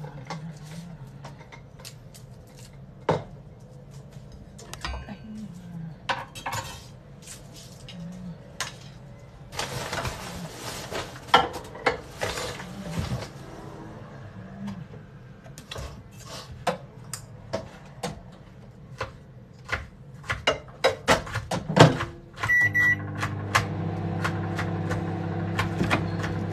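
Kitchen handling: scattered clicks and knocks of dishes and utensils on the counter, with a few seconds of hiss in the middle. Near the end a short beep sounds and a kitchen appliance starts a steady low hum.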